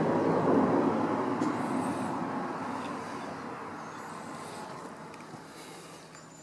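A passing vehicle's rushing noise with a low hum, loud at first and fading steadily away.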